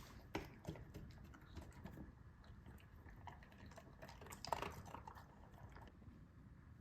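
Faint, irregular chewing and small mouth clicks of a large dog eating, with a slightly louder cluster of clicks about four and a half seconds in.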